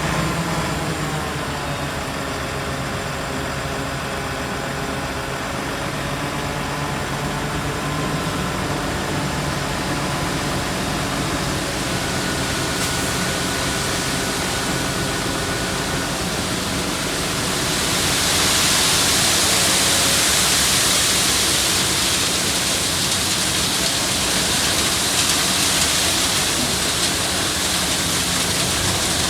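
Engines of heavy road-paving machinery running, their pitch dropping slightly about a second in. About two-thirds of the way through, a loud steady hiss joins them and holds on.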